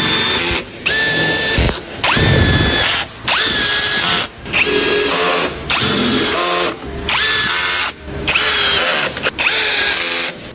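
Power drill run in about nine short bursts of roughly a second each, each spinning up quickly to a steady whine before stopping.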